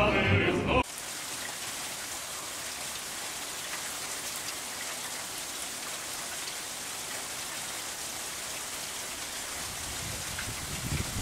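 Steady rain falling, an even hiss of drops on the ground and pavement. Sung music cuts off abruptly under a second in.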